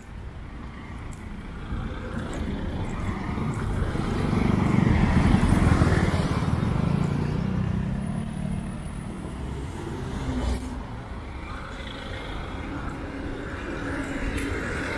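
Road traffic passing along a city street, with one motor vehicle driving past close by: its engine and tyre noise swells to a peak about five seconds in, then fades away.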